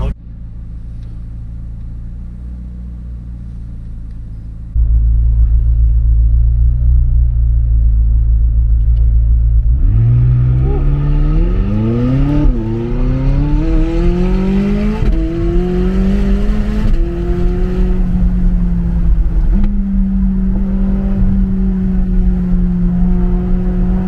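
McLaren 600LT Spyder's twin-turbo V8 heard from inside the car: a low rumble at first, stepping up louder about five seconds in, then about ten seconds in it accelerates hard, the pitch climbing and dropping through three quick upshifts before settling to a steady cruise.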